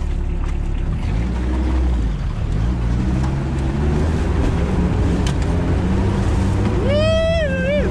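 Sherp amphibious ATV's diesel engine running under load as the vehicle drives out of the water onto the river ice, its pitch dipping about two seconds in and then climbing. A brief high-pitched squeal comes near the end.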